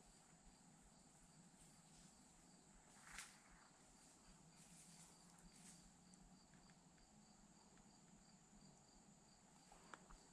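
Near silence in the woods: faint insects trilling, a steady high note with a regular pulsing chirp under it. A brief soft rustle comes about three seconds in.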